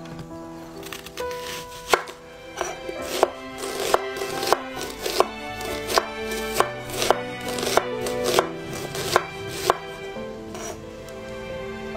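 Large kitchen knife slicing a peeled onion on an end-grain wooden cutting board, the blade knocking on the board in a steady rhythm about every two-thirds of a second. The knocks start about two seconds in and stop near the end, over soft background music.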